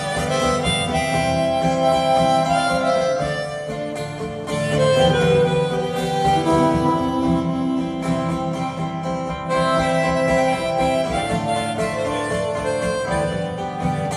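Harmonica playing held, melodic notes over a strummed acoustic guitar: an instrumental break in a live folk-country ballad.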